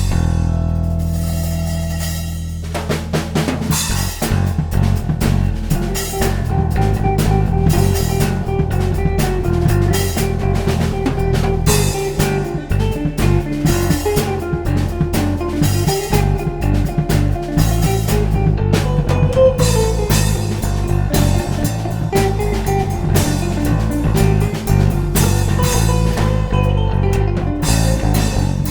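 Instrumental progressive rock: a held chord rings and fades for about two and a half seconds, then the drum kit comes in with snare rimshots and bass drum under a melodic line on electric guitar, recorded direct through a SansAmp amp-simulator pedal, and a Fender Jazz Bass.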